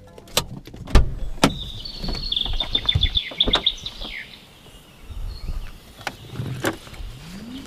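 Opel hatchback door and tailgate clunks and handling knocks, the loudest about a second in, with more thuds near the end as the boot is opened. A bird sings a quick run of high chirps in the middle, ending in a falling note.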